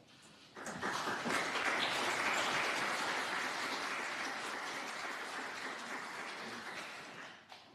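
Audience applauding, starting suddenly about half a second in, slowly fading and then cut off just before the end.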